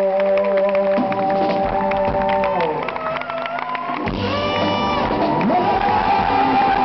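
Live band music with crowd noise. A held chord slides down in pitch and dies away about two and a half seconds in. The band starts up again about four seconds in.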